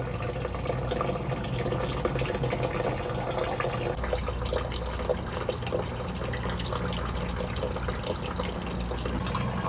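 A thin stream of gasoline draining from a vehicle's fuel tank, pouring steadily and splashing into the gas already collected in a plastic drain pan.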